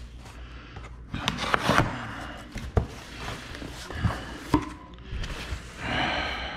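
Cardboard shipping box being opened: a knife slitting the packing tape, then the cardboard flaps pulled apart and folded back, with rustling, scraping and a few sharp knocks.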